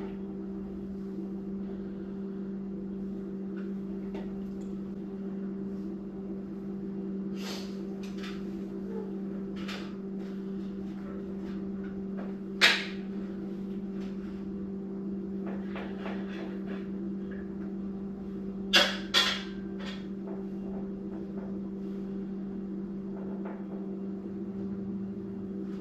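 A few scattered knocks and clanks of parts and tools being handled on a Model T chassis as the engine's front mount is lined up. The loudest knock comes about halfway through and a quick pair follows later, over a steady low hum.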